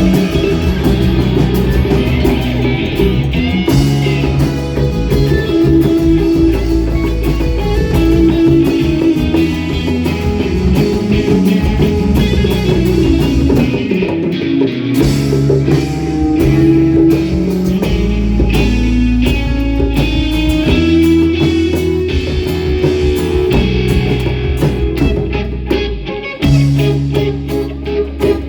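A rock band playing an instrumental passage of a song: guitar over bass and drum kit, with no singing.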